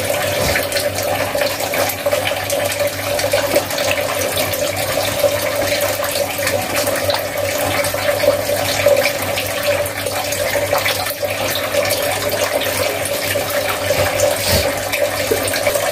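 Wet squelching of hands kneading raw chicken pieces through a yogurt marinade in a steel bowl, over a steady background hiss.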